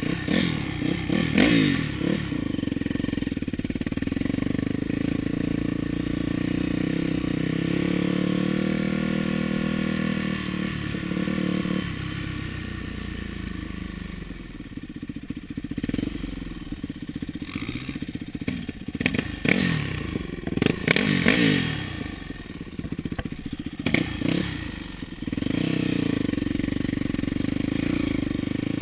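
Yamaha YZ426F single-cylinder four-stroke dirt bike engine ridden hard, its note rising and falling in repeated sweeps as it revs up and shifts gears. A run of sharp knocks and clatters comes about two-thirds of the way through.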